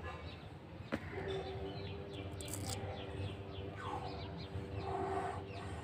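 Birds chirping, with a quick run of short falling chirps in the middle. There is one sharp knock about a second in, and a steady low hum from just after it.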